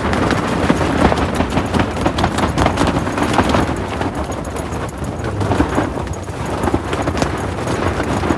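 Canvas rooftop tent flapping and rattling in strong gusting wind, the fabric snapping in a rapid, irregular patter over a steady rush of wind.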